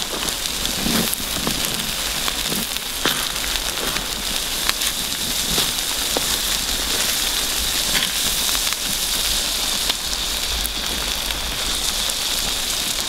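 Seafood paella simmering and sizzling in a wide steel pan over a wood fire, a steady hiss with scattered crackles and clicks from the fire and the stirring spatula.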